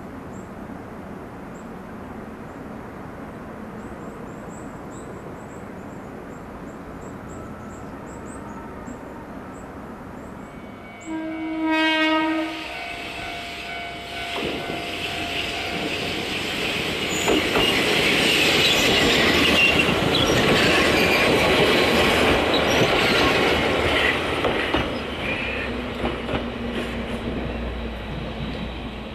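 Faint outdoor quiet with small bird chirps, then an electric train's horn sounds once for about a second and a half. The train then approaches on the track, its wheels clattering and squealing louder for several seconds before easing into a steady motor hum as it comes close and slows.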